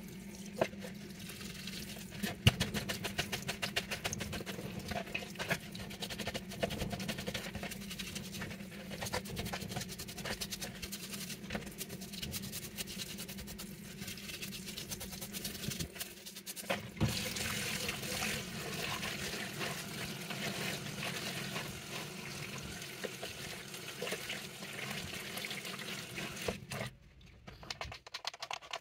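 Water splashing and trickling, with many irregular clicks and scrapes as something is washed. It quietens briefly about halfway through and again near the end.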